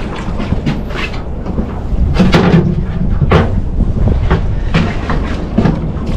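Irregular knocks and clunks of gear and feet against a fibreglass boat's deck and gunwale while a hooked squid is brought to a landing net, the loudest about two and a half and three and a half seconds in, over a steady low rumble of wind and sea.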